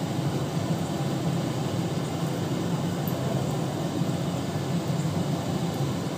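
Steady, even rushing drone of kitchen background noise, with no distinct clicks or knocks, while a pan of potato curry simmers on the stove.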